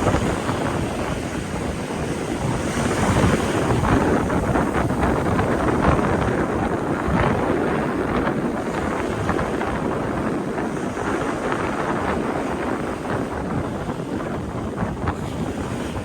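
Strong gusting wind buffeting the microphone, with sea waves washing against the shore underneath.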